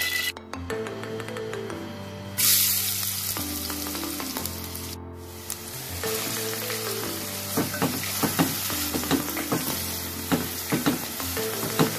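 Chopped onions dropped into hot oil in a metal pot, setting off a sudden loud sizzle a couple of seconds in. The onions keep frying while a spatula stirs them, knocking and scraping against the pot repeatedly in the second half.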